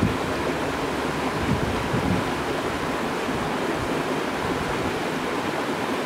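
Steady rush of a waterfall and its cascades falling down a rock canyon. During the first two seconds or so, wind buffets the microphone with low, uneven rumbles.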